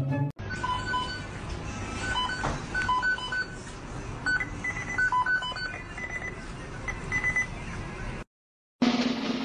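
A series of short electronic beeps at three different pitches, in pairs and short runs, over a steady hiss. The sound cuts out for a moment near the end.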